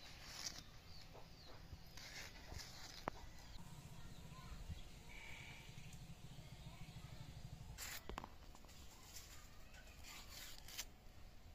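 A livestock call, drawn out for several seconds in the middle, over quiet village background, with short crisp cuts of green capsicum being sliced on a boti blade.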